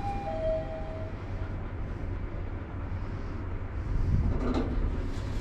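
Lift car running with a steady low rumble, with a two-note descending chime at the start that signals arrival at a floor. A brief clatter comes near the end.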